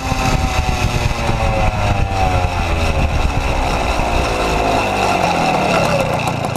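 Puch Maxi moped's single-cylinder two-stroke engine running through a 28 mm exhaust, its revs falling slowly and steadily.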